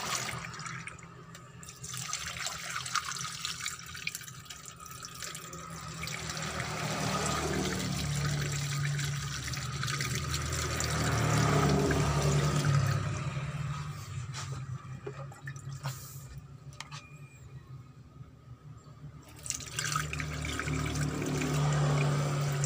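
Water poured from a metal cup into a plastic funnel in the radiator hose, splashing and gurgling as it drains into the engine; several pours, with a quieter spell about two-thirds through. The cooling system of a Mitsubishi L300 diesel is being filled with plain water to test it before coolant goes in.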